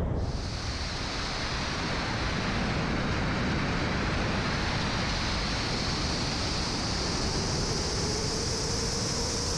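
Airflow rushing past an MDM-1 Fox aerobatic sailplane in flight: a steady hiss with a high whistle over it. A faint lower whistle comes in about seven seconds in and rises slightly.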